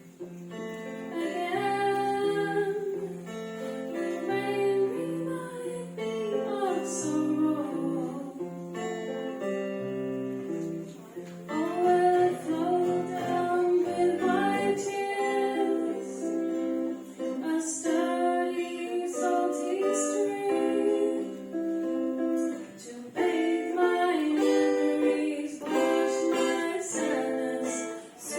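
Acoustic guitar strummed in chords while a woman sings a melody over it.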